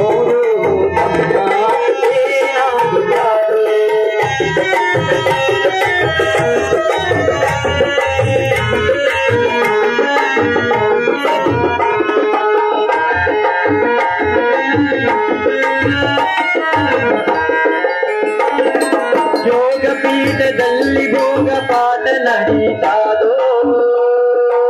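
Live Indian folk-song accompaniment: harmonium playing a sustained melody over a steady hand-drum rhythm.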